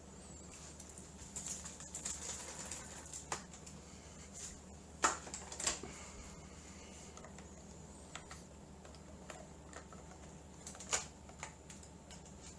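Scattered light clicks and taps with some rustling, like small hard objects being handled, over a faint steady hum with a thin high tone. The sharpest clicks come about five seconds in and again about eleven seconds in.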